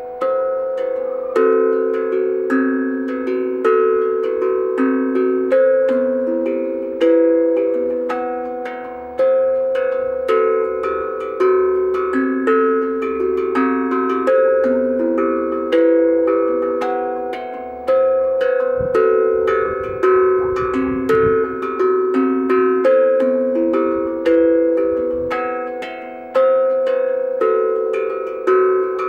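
URSA Minor B glucophone, a steel tongue drum, played with the fingers: a continuous melody of struck, bell-like notes, each ringing on and fading as the next ones overlap it.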